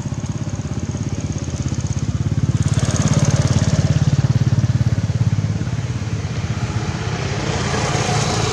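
A small engine running with a steady, fast pulsing rumble, getting louder about three seconds in, easing off, then swelling again near the end.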